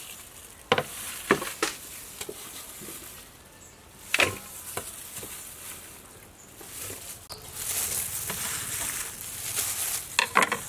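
Knife cutting leafy greens on a thick wooden chopping block, with a few sharp separate knocks in the first half and a steady light hiss later on.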